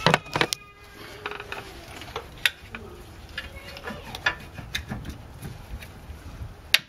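Front brake caliper of a Mercedes-Benz W202 C280 being worked off the brake disc by hand: irregular metallic clicks and clunks, with a sharp clank near the end.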